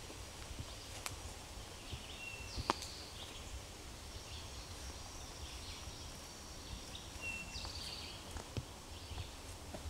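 Woodland ambience: faint birdsong, a short high whistled note followed by a buzzy trill heard twice, and a thin steady high tone for a couple of seconds midway, over a low rumble. Two sharp clicks come about one second and nearly three seconds in, the second the loudest sound.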